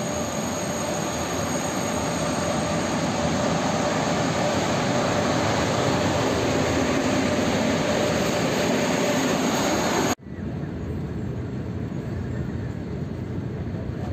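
SNCF TGV high-speed train pulling in alongside a station platform: a loud, steady rushing noise with a faint whine in it, which cuts off abruptly about ten seconds in. After that comes the quieter steady rumble of a train running, heard from inside the carriage.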